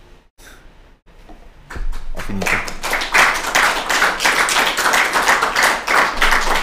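Audience applauding, breaking out suddenly about two seconds in and going on strongly.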